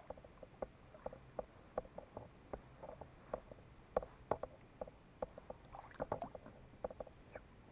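Faint, irregular small clicks and taps, a few a second, around a plastic fishing kayak sitting on calm water: water lapping at the hull and light knocks of gear on the boat.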